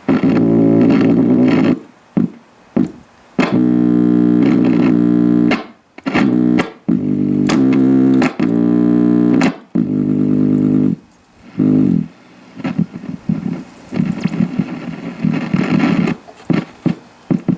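Audio from the speaker of a 1940 Philco 40-155 tube radio, with a substitute 6K8 tube in the oscillator socket: music cutting in and out abruptly in spells of a second or two, with sharp crackling clicks in the gaps.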